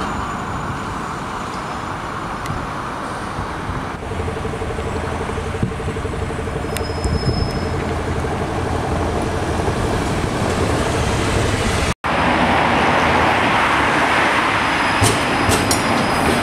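Street noise of passing city transit on a tram route: an articulated city bus runs by with a steady hum. After a sudden cut, louder running noise of an articulated tram passing, with sharp clicks from its wheels near the end.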